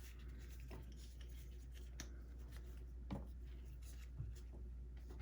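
A few faint clicks and rustles of small objects being handled, over a low steady hum.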